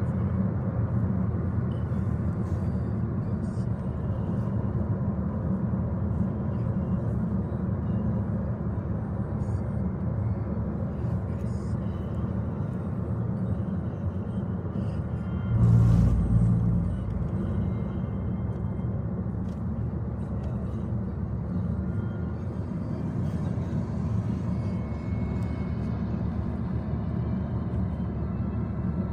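Steady road and engine noise inside a moving Ford car's cabin, a low rumble, with one brief, louder low thump about halfway through.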